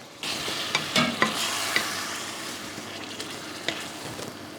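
A splash of water hitting the hot pan of chicken and spiced onions, sizzling sharply at once and then slowly dying down. A few clicks of the stirring spoon against the pan come through the sizzle.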